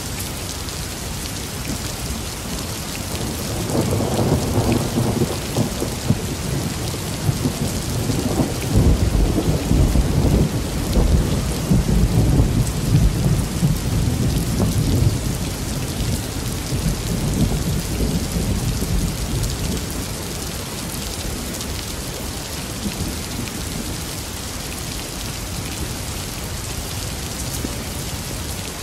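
Steady rain with a long rumble of thunder that builds about four seconds in, is loudest in the middle, and fades away over the second half.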